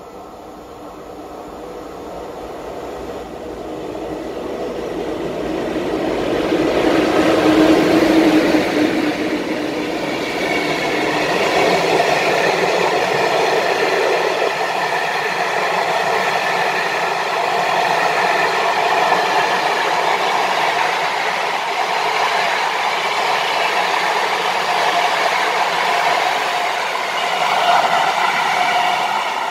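A PKP Intercity TLK passenger train, an electric locomotive hauling a long rake of coaches, approaching and passing at speed. The noise grows steadily, is loudest as the locomotive goes by about eight seconds in, then holds as a steady running noise while the coaches go past.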